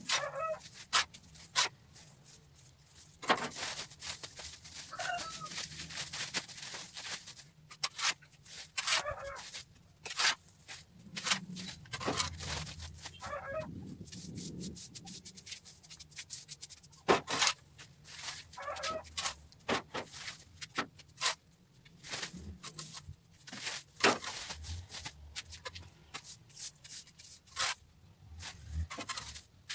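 Metal shovel scraping across a concrete floor, scooping up cedar sawdust and tipping it into a sack, in irregular scrapes and rustles. Short clucking calls come and go in the background.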